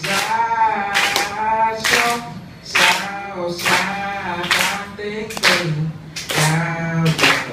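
A teenage boy singing a slow Vietnamese folk song into a microphone, holding long wavering notes, while hands clap on the beat a little faster than once a second.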